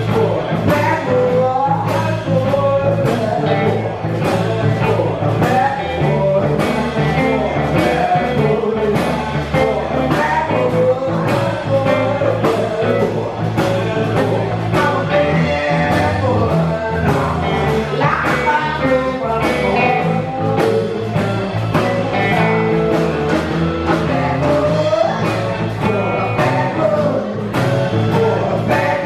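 Live blues-rock band playing: electric guitar, bass and drums with a steady beat, and singing.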